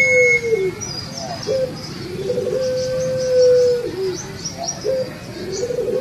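Barbary dove of the Indonesian long-voiced 'puter pelung' type cooing: a short note, then a long drawn-out coo held on one pitch that drops at its end, repeated about every three seconds.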